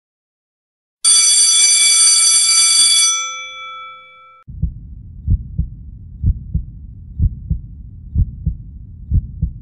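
A bell rings loudly for about two seconds and then dies away. About four seconds in, a heartbeat starts: low double thumps, lub-dub, about once a second.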